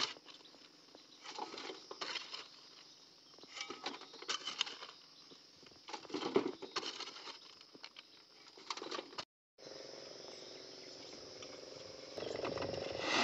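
A metal shovel scrapes into dry, stony soil and tips clods and stones into a metal wheelbarrow, several scoops a second or two apart, each a cluster of scrapes and rattling knocks. After a break about nine seconds in, a steady high drone takes over, with a lower hum growing louder near the end.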